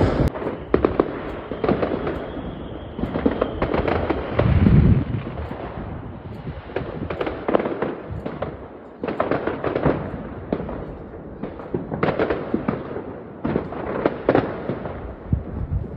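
Fireworks display going off: a steady run of bangs and crackling bursts, with a deeper boom about five seconds in.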